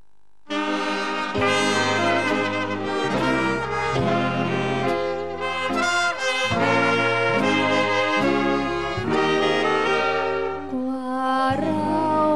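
A big band of saxophones, brass and violins plays an instrumental passage. It starts abruptly about half a second in, out of near silence, with changing chords throughout.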